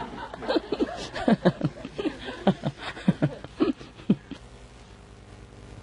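A seated audience laughing and chuckling in scattered bursts, dying away about four seconds in to a faint steady room hum.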